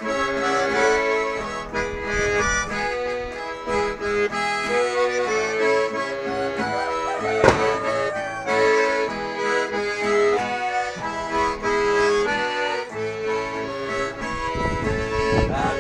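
Instrumental song introduction led by an accordion playing the melody in held, stepping notes, with one sharp click about halfway through.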